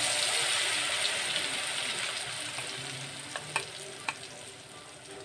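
Blended dal-and-egg batter poured into hot oil in a metal kadai, sizzling loudly at once and slowly dying down as it settles. A few sharp clicks come near the middle as the last batter is scraped out.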